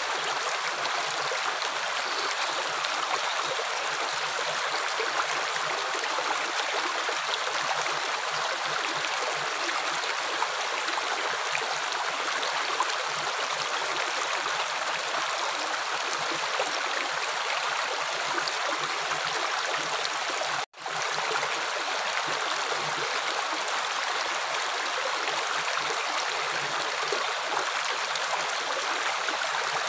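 Running water flowing steadily with an even rushing splash. About two-thirds of the way through, the sound cuts out for a split second, a break in the recording's loop.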